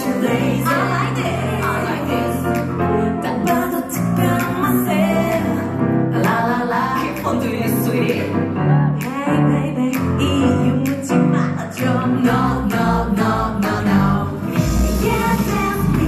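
A woman singing live into a stand microphone over backing music, amplified through the concert sound system.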